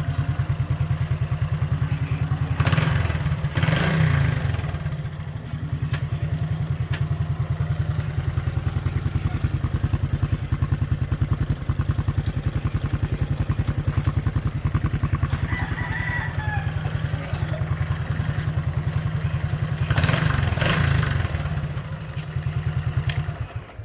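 Honda XRM125 motorcycle's 125 cc single-cylinder four-stroke engine running steadily at idle, with two brief louder surges about three seconds in and around twenty seconds in. The engine cuts off just before the end.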